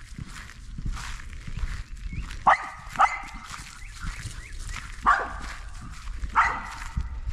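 A dog barking, four barks: two in quick succession about two and a half seconds in, then one at about five seconds and one near the end.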